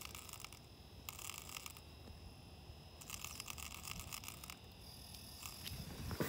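Small ice-fishing reel cranked in three short spurts, a faint rapid ticking whirr, as a hooked fish is reeled up through the ice hole.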